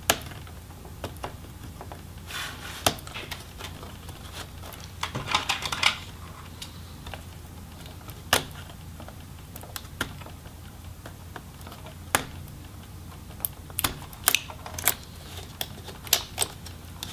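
Irregular small clicks and light taps of a screwdriver and fingers working a cable connector and the plastic laptop case, some coming in quick clusters, over a faint steady low hum.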